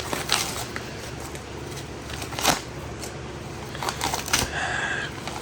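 Rustling and crinkling of a shipping package being handled and opened, a few short scrapes and crackles over a steady low hum.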